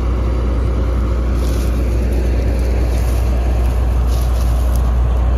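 Combine harvester's engine running steadily with a constant low hum.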